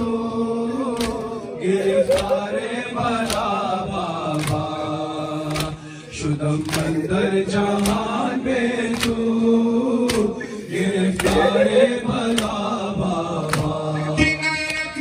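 A male reciter singing a Farsi noha, a mourning lament, through a microphone, with a crowd of men beating their chests in time: a sharp slap about every two-thirds of a second.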